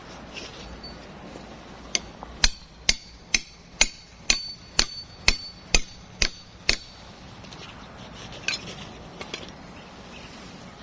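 Hammer driving a wooden climbing peg into a tree trunk: about eleven sharp strikes at roughly two a second, each with a brief ring, starting about two seconds in and stopping near the middle.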